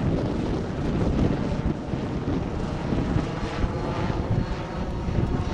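Westland Lynx helicopter flying past, its rotor and turbine engines making a steady noise with a faint steady whine above it.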